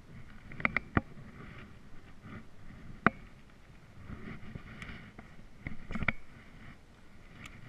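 Sharp knocks and clicks of a paddle and fishing rod being handled on a paddleboard deck, the loudest a single knock about three seconds in, with a cluster near the end, over low sloshing and rubbing.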